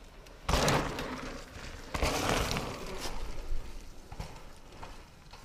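Mountain bike on a dirt trail: two loud rushes of tyre noise on dirt, about half a second and two seconds in, as the rider lands a jump and rides through, followed by a few scattered knocks.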